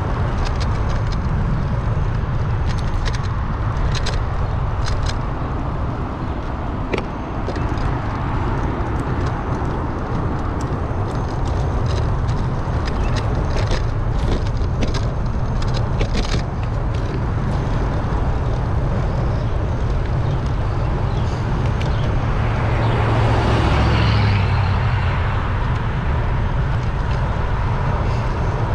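Wind buffeting the microphone of a bike-mounted action camera while riding, as a steady low rumble, with scattered rattling clicks in the first half. About three-quarters of the way through, a passing vehicle swells up and fades away.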